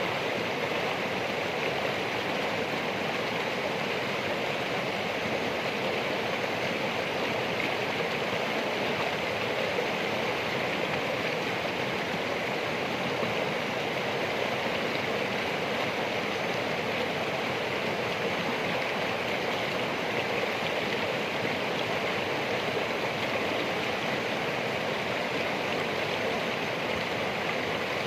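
Flowing water from a stream, a steady unbroken rush and babble.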